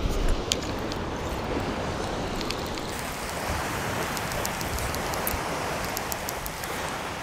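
Ocean surf washing steadily on the beach, with wind on the microphone and a scatter of faint high ticks in the second half.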